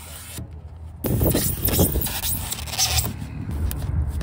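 Utility knife slicing through foam insulation board, a scratchy crackling scrape with small clicks that starts about a second in, over a low steady hum.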